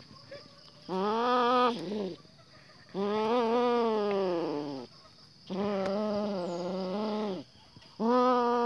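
Domestic cat giving four long, low, drawn-out yowls, one about every two and a half seconds, with a mouthful of cloth.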